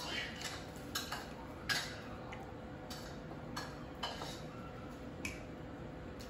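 Eating sounds of roast chicken pulled apart by hand on a plate, then bitten and chewed: a string of short, sharp clicks and crunches at irregular intervals.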